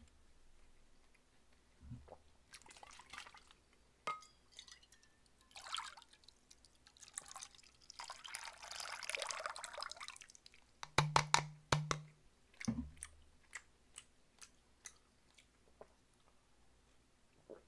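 Makgeolli poured from the bottle into a metal bowl, a hissing pour lasting about two seconds midway, followed by a quick run of sharp knocks.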